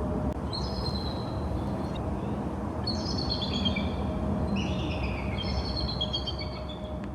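Birds singing in short bursts of high chirping notes, a few seconds apart, over a steady low background rumble.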